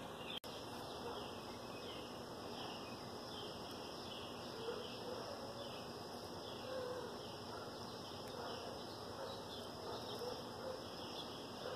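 Faint outdoor insect sounds: a steady high drone with a short falling chirp repeating roughly twice a second. The sound cuts out for an instant just after the start.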